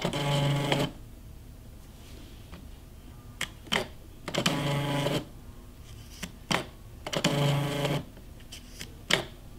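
Zebra QLn220 mobile thermal label printer printing and feeding out labels in three short runs of under a second each, a steady motor whir, with a few sharp clicks in between.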